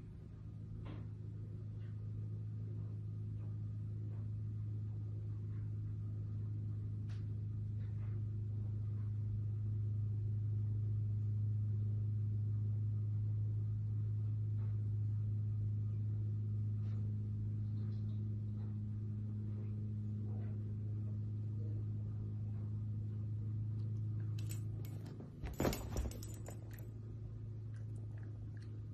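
A steady low hum with a few higher overtones that stops about three seconds before the end. A handful of sharp clicks and rustles follow.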